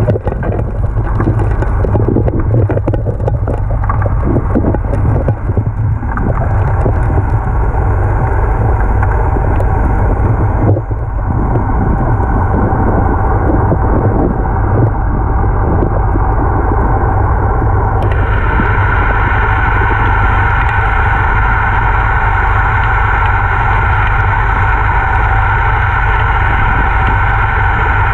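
Suction dredge's engine and pump running with a steady drone, heard underwater, with scattered clicks and rattles from the gravel around the intake nozzle in the first third. About two-thirds of the way through, a brighter, higher tone joins the drone.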